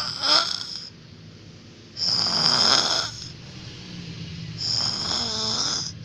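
A man snoring, three loud rasping snores about two and a half seconds apart, each carrying a high whistle.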